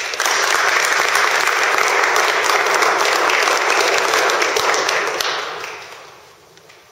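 A crowd applauding: a burst of clapping that starts at once, holds steady for about five seconds, then dies away.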